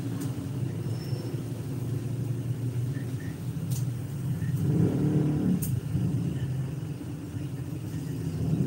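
Low rumble of a motor vehicle engine, swelling louder as it passes about five seconds in, over a steady background rumble.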